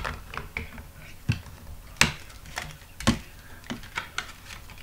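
Irregular sharp clicks and taps, about one or two a second, the loudest about two and three seconds in, in a small room.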